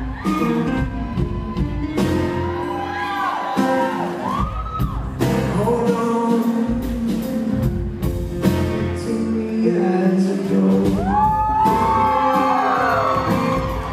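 Live band performance: a male lead vocalist singing over strummed acoustic guitar, drum kit and bass guitar.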